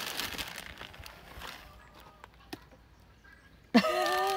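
Paper bag rustling and loose soil crumbling through a hand as it is poured into a plastic bucket, fading out over the first second or so. Near the end, a short, wavering, voice-like call cuts in suddenly and is the loudest sound.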